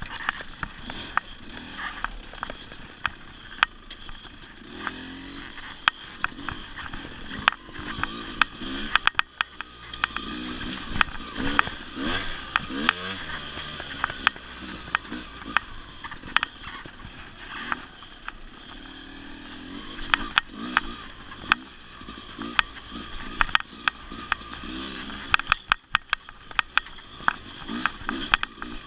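Dirt bike engine running and revving up and down as the bike rides a rough trail, with many sharp knocks and rattles from the bike jolting over bumps.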